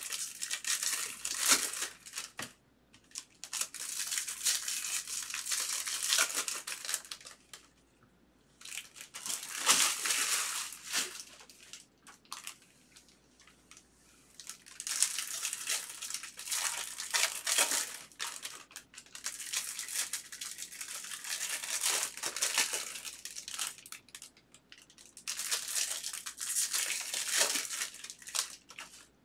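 Plastic foil wrappers of 2023 Bowman baseball card packs crinkling and rustling as the packs are handled and torn open. The sound comes in several bouts with short quiet pauses between them.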